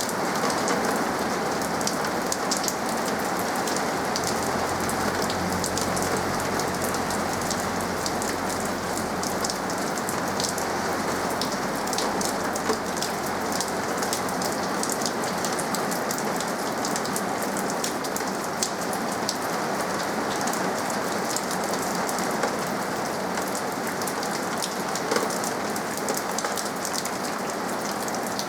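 Steady rain falling, with many individual drops landing as sharp ticks over a continuous hiss.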